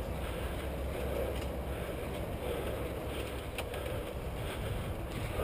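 Wind rushing over the microphone of a camera riding on a mountain bike, with the tyres rumbling and the bike rattling over a dirt trail, and a few sharp clicks about three and a half seconds in.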